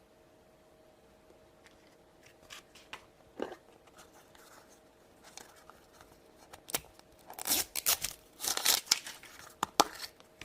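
Small plastic toy packaging handled and torn open: scattered clicks and crinkles, then a run of louder crinkling and tearing in the second half.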